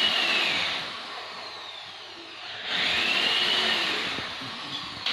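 Handheld electric power tool run in two short bursts on a wooden stair tread, its motor whine rising as it spins up and sagging as it winds down each time.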